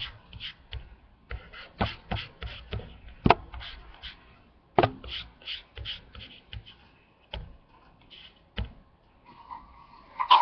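Irregular sharp clicks and taps, with two louder knocks about three and five seconds in.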